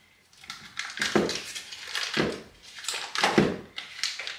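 A butter wrapper crinkling and rustling as a block of butter is unwrapped and handled by hand, in several short rustles.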